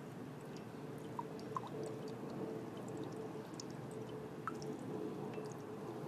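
Brewed coffee trickling and dripping into a cup as an Aeropress plunger is pressed down slowly and steadily, forcing it through the paper filter, over a faint steady hum.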